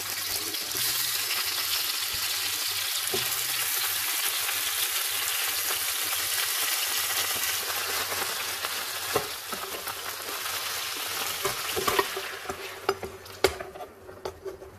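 Pieces of lamb on the bone sizzling in hot fat in a pot, turned with a metal slotted spoon, with a few sharp knocks of the spoon against the pot. The sizzling drops away near the end as the white yogurt sauce goes over the meat.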